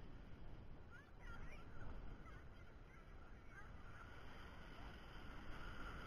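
Faint, muffled wash of shallow surf and foaming water, with a few faint short high cries in the distance.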